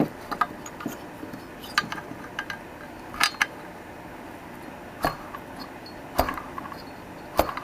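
Scattered sharp metallic clicks and clinks, about six over several seconds at uneven spacing, from the spark plug and the small two-stroke engine being handled and turned over by hand.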